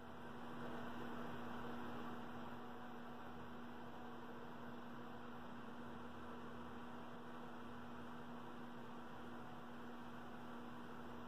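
Steady electrical hum, one unchanging low tone over a faint even hiss.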